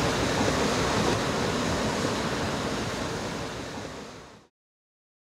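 Steady outdoor rushing noise, like water or wind, with no pitch or rhythm, fading out over a couple of seconds and stopping about four and a half seconds in.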